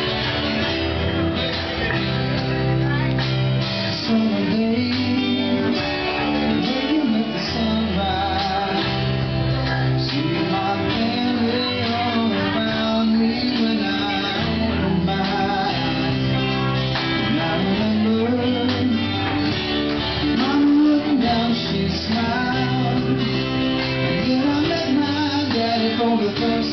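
A live band playing a song, led by a strummed acoustic guitar with electric guitar, bass, drums and keyboard, and a melody line that bends and wavers throughout.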